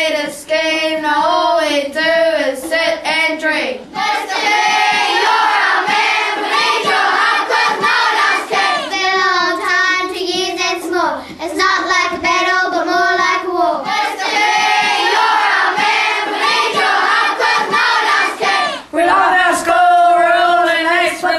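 Children's voices chanting a rap together, small groups of schoolchildren taking turns at the lines, a fresh group starting about four seconds in and again near the end.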